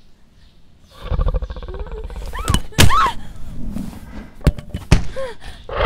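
A low, rough growl starts about a second in, with a few short rising-and-falling cries and three sharp knocks over it.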